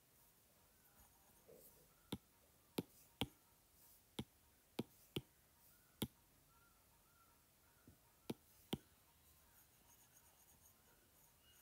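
Stylus tip tapping on a tablet's glass screen as lines are drawn: about ten short, sharp clicks at irregular intervals over near silence.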